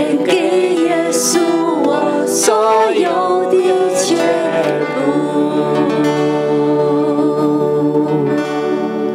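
Worship band playing a slow song: a woman's voice singing over acoustic guitar and keyboard. The singing stops about five seconds in, leaving steady held keyboard chords.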